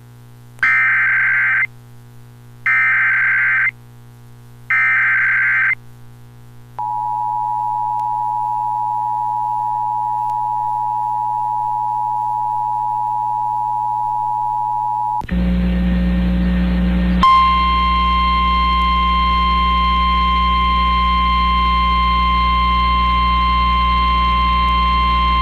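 Emergency Alert System activation: three bursts of the SAME digital header, each about a second long, then the two-tone EAS attention signal held for about eight seconds. After a moment of static, a single steady NOAA Weather Radio alert tone sounds over a loud hum for about nine seconds.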